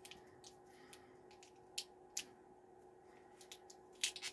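Faint handling noises of a small hot sauce bottle: two light clicks about two seconds in, then a quick run of clicks and taps near the end, over a faint steady hum.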